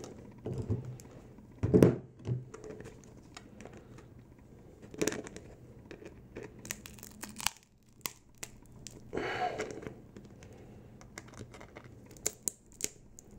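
Thin-walled 3D-printed nylon 618 pot being pulled and twisted with two pairs of pliers: crinkling and tearing of the flexible plastic, with scattered sharp clicks and short bursts and several quick clicks close together near the end.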